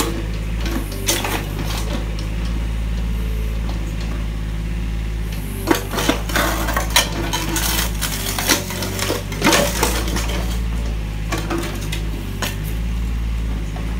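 Kubota mini excavator's diesel engine running steadily while its steel bucket presses and drags over broken porcelain toilet pieces. Sharp ceramic clinks and cracks come in a cluster from about six to ten seconds in, with a few more near the end.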